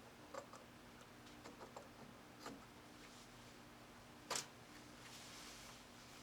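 Faint clicks and taps of a RAM stick being handled and pushed into a motherboard's memory slot, with one sharper click about four seconds in. A faint steady hum underneath.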